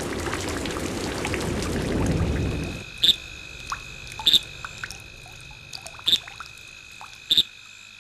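Heavy rain falling steadily for about the first three seconds. It cuts off to a quieter scene of a few short frog calls, a second or more apart, over a thin steady high tone.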